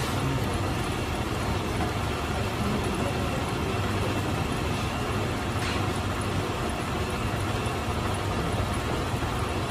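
Metal lathe running steadily, a constant mechanical hum with a faint high whine, and one light tick a little past halfway.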